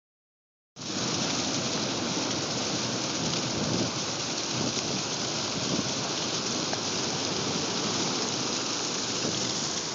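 Heavy surf breaking and washing over rocks: a steady, dense rush of churning white water that begins about a second in and holds without clear individual wave crashes.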